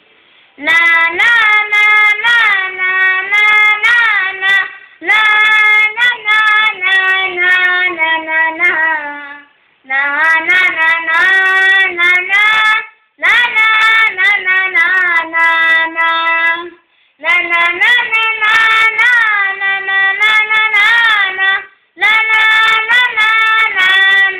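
A child singing unaccompanied, in phrases of about four seconds with short breaks between them.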